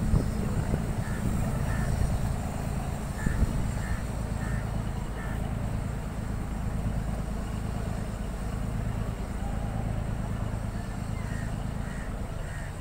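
Steady low drone of a boat's engine, heard from on board the moving boat.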